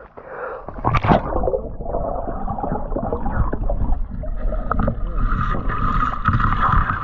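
Water sloshing and gurgling right at the microphone, with a heavy irregular rumble, as someone works in the water at a catfish hole.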